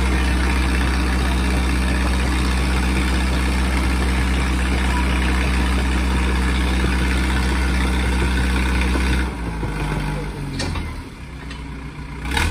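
Tractor diesel engines running loud and steady. About nine seconds in the engine note changes and the sound falls away. It picks up again near the end.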